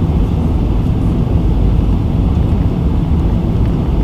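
Steady low rumble of a Boeing 747-400's cabin in flight on approach: airflow noise and the drone of its four Pratt & Whitney PW4056 turbofans heard from inside the cabin.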